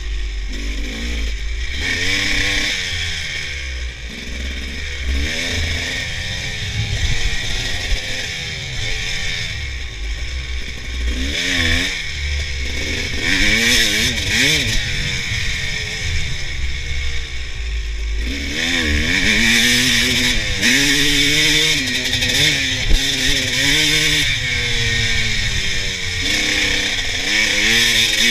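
Honda CR250 two-stroke dirt bike engine revving up and down continuously while being ridden over a rough dirt trail, with wind rumble on the microphone coming and going. There is one sharp knock about two-thirds of the way through.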